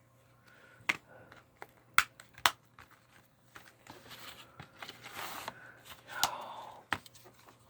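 Handling of a Blu-ray case and its contents: several sharp plastic clicks, with soft rustling and sliding between them in the middle.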